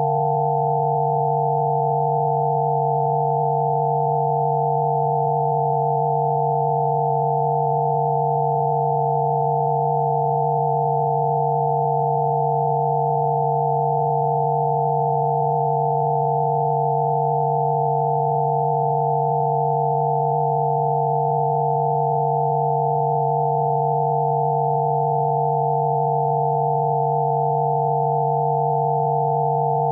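Rife frequency tones: several steady pure electronic tones held together without change, one low tone under a cluster of higher ones.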